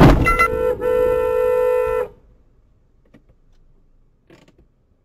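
Car horn sounding at a black SUV stopped head-on, close in front: a sharp knock and a couple of short honks, then one steady blast held for about a second that cuts off about two seconds in.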